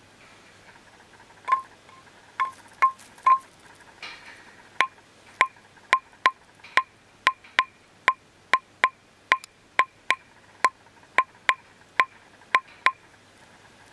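A hanging bamboo tube struck again and again with a small corded impact hammer, about twenty times, roughly two strikes a second after a short pause. Each strike is a short, hollow knock with a brief ringing tone. The ring dies away quickly and completely dry, with no echo, because the room is anechoic.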